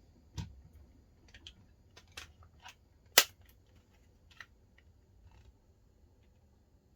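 Small plastic clicks and taps from handling an Xbox 360 controller's AA batteries and battery pack, with one much louder, sharp click about three seconds in.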